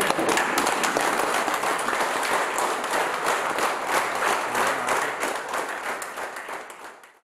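A roomful of people clapping in applause, the dense clapping fading away over the last couple of seconds.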